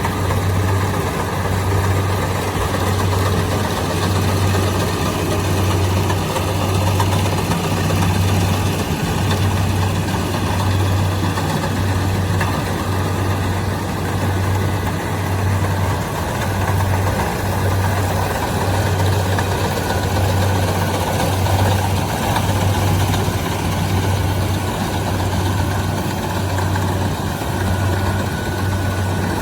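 Kubota DC-70 Plus rice combine harvester running steadily: a diesel engine hum with a slight pulse under the whirr of its machinery.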